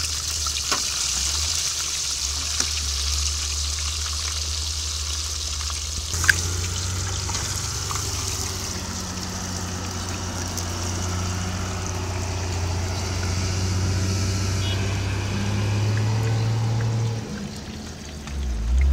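Fish pieces frying in hot oil in a karahi, a steady sizzle that fades away after about six seconds, under a low steady rumble. The fish is in its first, half-way fry.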